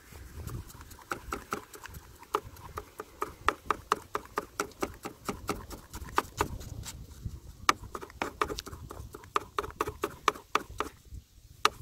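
Plastic fish scaler scraping the scales off a small goby: rapid, uneven scratchy clicks, several a second, with a short pause near the end.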